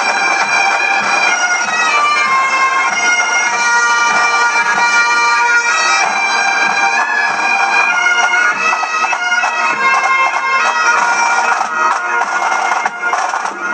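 Pipe band playing a tune on bagpipes, the chanter melody over the steady drones, with drums beating along; the drum strokes come through more sharply near the end.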